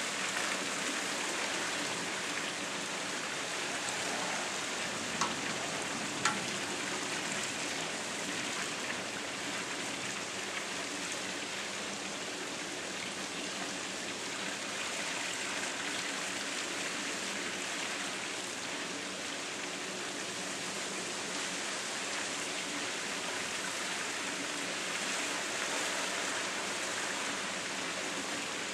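Steady rush of splashing, falling water, even throughout, with two short sharp clicks about five and six seconds in.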